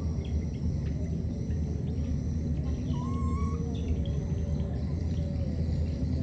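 Outdoor ambience: a steady low rumble with faint scattered bird chirps and insect sounds, and one short whistled note about three seconds in.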